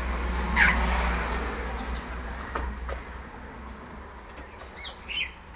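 A rushing noise with a low rumble that fades away over the first few seconds, then a few short, high bird chirps near the end.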